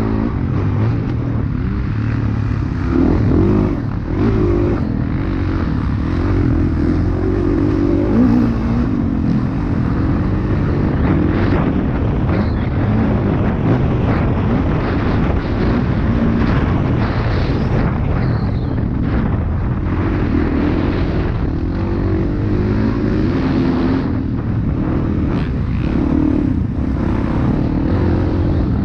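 Dirt bike engine racing round a motocross track, its pitch rising and falling continually with the throttle and gear changes.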